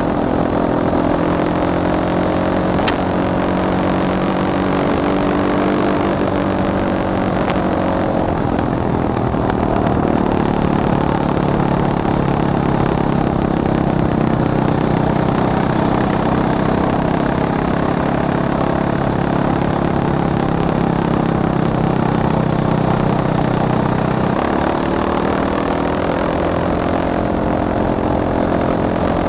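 Fantic Caballero 500 Flat Track motorcycle's single-cylinder engine running under way, its pitch rising and falling at first, dropping to a lower steady note about a third of the way in, holding there for some fifteen seconds, then climbing again near the end.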